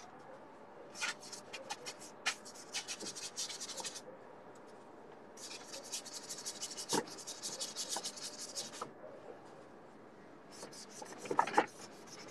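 Paintbrush scrubbing paint onto a canvas in rapid short strokes, in three bouts with brief pauses between.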